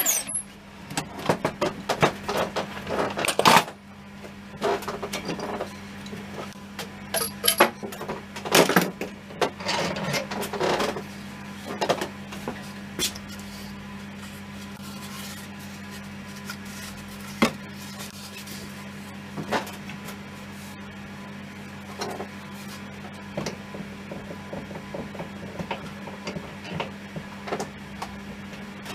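Workshop handling noises: scattered knocks, taps and scrapes of tools and wood on a bench, busiest in the first dozen seconds and sparse after, over a steady low hum.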